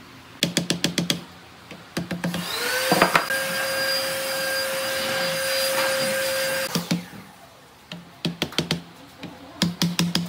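Quick runs of hammer taps on wooden slats, with an electric power tool motor that spins up a couple of seconds in, runs at a steady pitch for about four seconds and then stops. More quick taps follow near the end.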